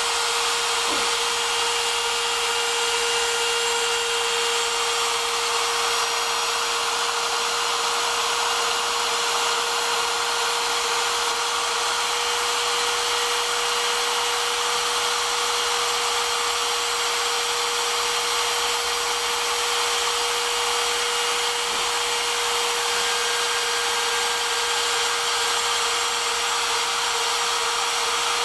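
Homemade CNC router's spindle motor running steadily: one constant high hum over a dense hiss, holding the same pitch and level throughout.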